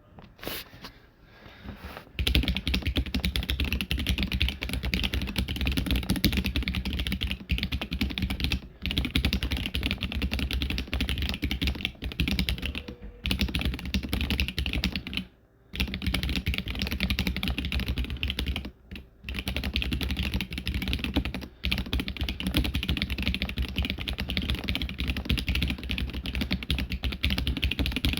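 Mechanical keyboard with Akko Jelly White linear switches and PBT keycaps typed on fast and continuously, starting about two seconds in, with a few short pauses.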